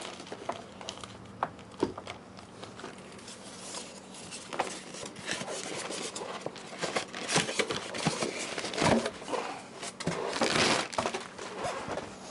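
Plastic packaging wrap rustling and crinkling as it is pulled off a new electric scooter. It comes in irregular bursts, louder toward the end, with a few sharp knocks of handling.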